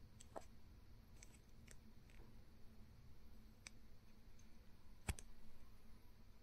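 Near silence: faint room tone with a low hum and a few scattered faint clicks, the sharpest about five seconds in.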